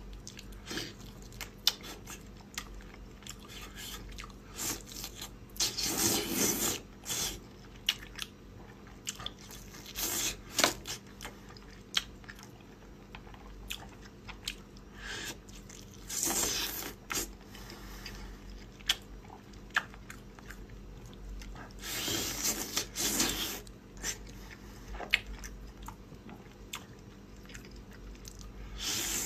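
Close-miked eating: chewing and crunchy bites, with scattered sharp clicks and a few longer, louder noisy bursts about 6, 10, 16 and 22 seconds in.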